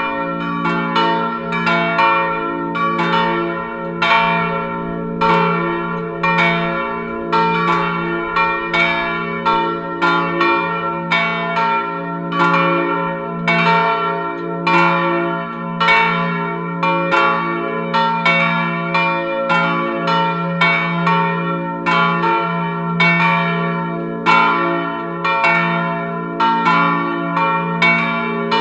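Three swinging bronze church bells cast in 1988 by the Felczyński foundry of Przemyśl, tuned to f′, b′ and d″ and weighing about 850, 450 and 250 kg, ringing together in a full peal. Their strokes overlap at about two or three a second, each note ringing on into the next over a steady low hum.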